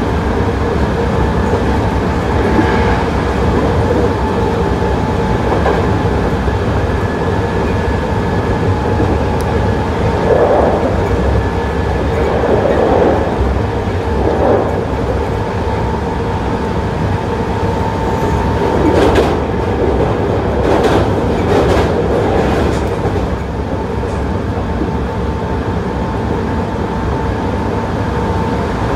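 Hankyu 8000-series electric train with Toshiba GTO-inverter drive, heard on board while running: a steady whine over the rumble of the wheels, with a few short bursts of wheel clatter over rail joints. The whine fades somewhat about three-quarters of the way in.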